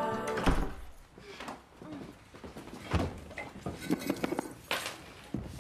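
Background music cuts off and a dull thump follows about half a second in. After that come soft close-up sounds of a couple kissing: lips, breathing and rustling, broken by a few sharper knocks, the strongest about three seconds in and near the end.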